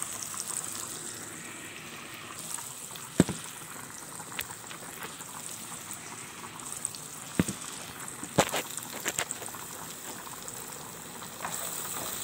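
Food cooking in pans on a gas stove: a steady sizzling hiss, broken by a few sharp knocks and clicks, the loudest about three seconds in and a cluster around eight to nine seconds in.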